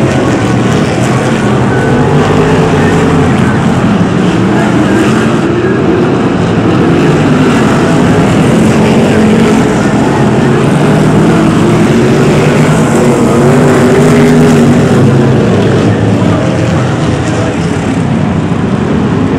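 A pack of BriSCA F1 stock cars' V8 engines racing together. Several engine notes rise and fall over one another as the cars accelerate and lift off around the oval.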